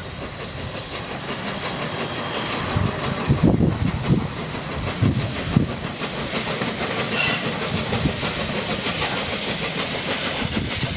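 LNER Peppercorn A1 three-cylinder Pacific steam locomotive approaching at low speed: steam hissing, a few low exhaust puffs, and wheels clicking over the rail joints, growing slightly louder as it nears.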